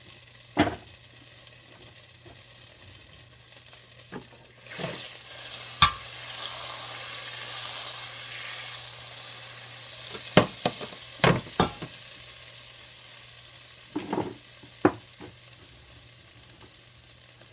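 Butter melting and sizzling in a stainless steel frying pan. The sizzle swells about four seconds in as the pan is moved, then dies away. Several sharp clinks and knocks sound through it.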